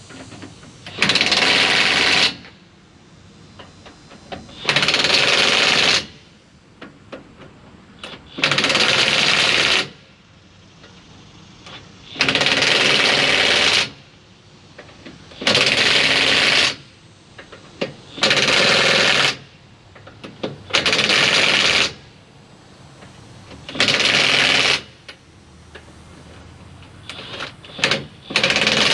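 DeWalt 20V 1/2-in drive cordless impact wrench hammering on lug nuts in repeated bursts of one to two seconds, about eight times, with small clicks and clinks between the bursts.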